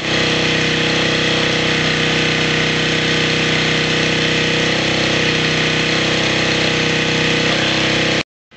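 Small 2.5-horsepower engine driving an alternator as a homemade welding generator, running steadily at a constant speed. The sound cuts off abruptly near the end.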